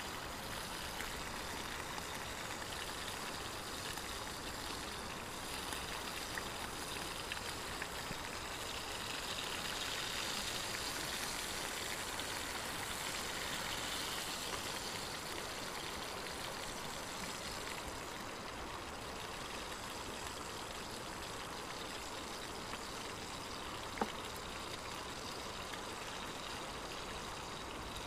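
Pieces of meat sizzling steadily in a titanium frying pan over a wood stove's coals. One sharp click comes about 24 seconds in.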